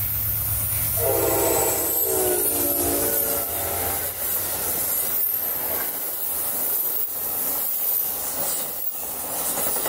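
Amtrak passenger train passing close at speed. The diesel locomotive sounds its horn once, about a second in, for about a second and a half, over the low rumble of its engine. Then the stainless-steel passenger cars rush by, their wheels clicking rhythmically over the rail joints.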